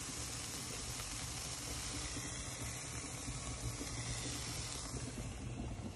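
Halved cherry tomatoes, chopped garlic and chili sizzling steadily in oil in a frying pan, over a low steady hum.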